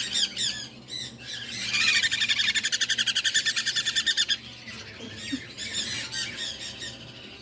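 Small parrots calling and squawking. About a second and a half in, one bird gives a loud, fast chattering run of calls that lasts nearly three seconds, then stops suddenly, leaving fainter chirps.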